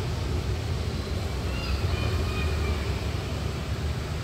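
Street ambience: a steady low rumble of motor traffic, with a few faint short high tones near the middle.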